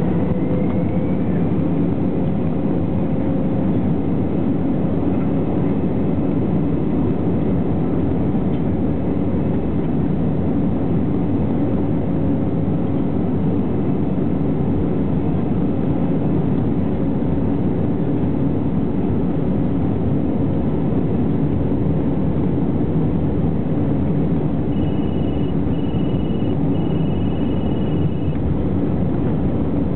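Jet airliner's engines and cabin noise heard from inside the passenger cabin: a loud, steady roar. Three short high tones sound near the end.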